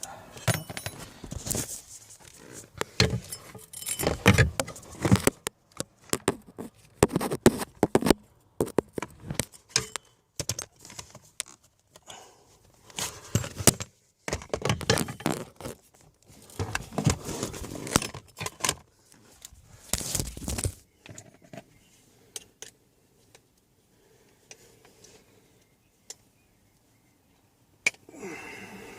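Hard plastic clicking, rattling and scraping in repeated bursts as the broken heater flap is worked against the cut-open heater blower case. The handling stops about 21 seconds in, leaving only a few faint ticks.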